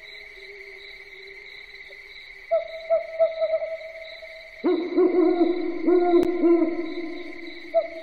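Owl hooting: a few short hoots about two and a half seconds in, then a louder run of lower repeated hoots from about halfway to past the seven-second mark, and more short hoots near the end. A steady high trill like crickets runs underneath, with a single sharp click during the louder hoots.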